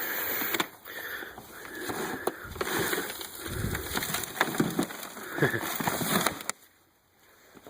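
Soil and potatoes being tipped out of a plastic Rubbermaid tub: a sliding, rustling pour with scattered knocks and thuds, which stops about six and a half seconds in.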